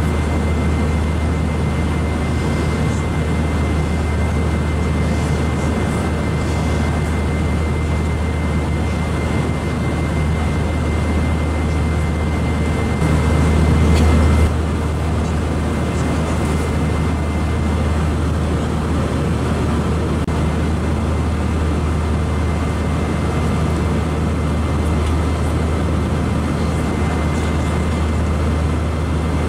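Airbus A319-132 cabin noise in cruise: a steady low rumble and rush of airflow with a faint steady high whine. A brief louder swell of the rumble about halfway through.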